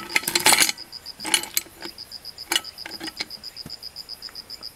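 Clinks and rattles as a hand rummages inside a metal-rimmed insulated container, loudest in the first second, with a few more knocks later. Behind them, an insect chirps in a high, rapid, evenly pulsed series.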